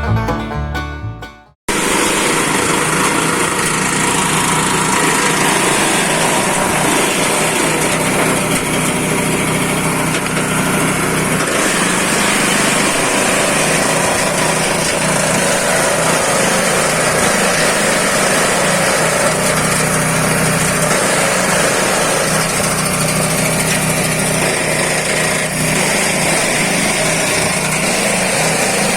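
Banjo music cuts off about two seconds in, followed by a multipurpose fodder and grass chopping machine running steadily.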